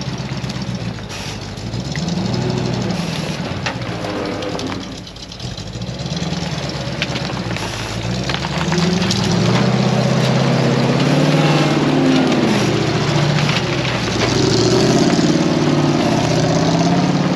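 GAZ-66 truck's engine revving up and down as the truck on arch tyres crawls through boggy forest ground, getting louder from about eight seconds in.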